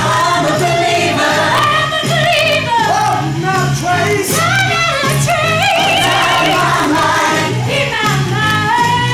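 Show tune sung by a group of voices over a steady beat, with one voice holding a note with vibrato about halfway through.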